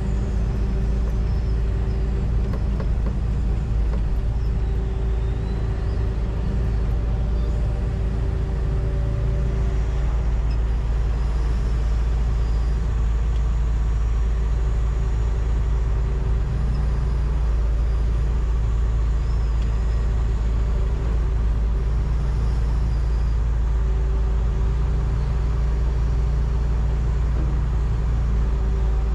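John Deere 245G excavator's diesel engine and hydraulics running steadily under working load, heard from inside the cab, with a heavy low rumble and a whine that comes and goes.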